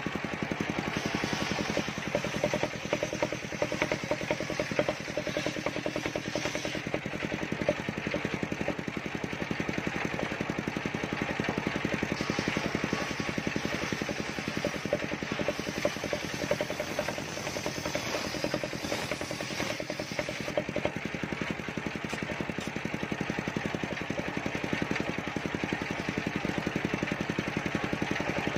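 Large engine-driven table circular saw running steadily, with its big blade ripping mindi (white cedar) boards at times.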